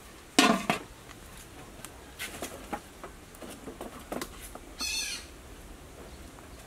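A metal pot lid clanks down onto a steel cooking pot about half a second in. Small crackles from the wood fire under the pot follow, and a short bird call comes about five seconds in.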